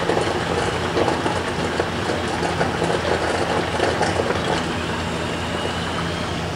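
Portable DC metal disintegrator's electrode arcing into an aluminum rivet, a dense crackling over the machine's steady hum. The crackle stops about four and a half seconds in, as the arc is switched off, leaving the steady hum.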